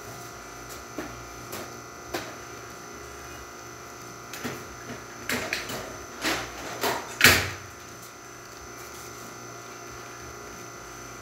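An Elektra espresso machine hums steadily while a shot is pulled. Over the hum come a run of short clinks and knocks, busiest in the middle, with the loudest knock about seven seconds in.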